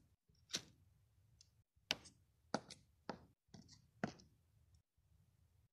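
Light clicks and taps from hard plastic Littlest Pet Shop figurines being handled and set down, about five spaced over several seconds, with a faint low hum between.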